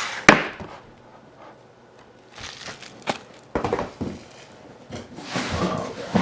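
A cardboard trading-card box and its packaging being handled and opened: a sharp knock, then several short bouts of crinkling and scraping.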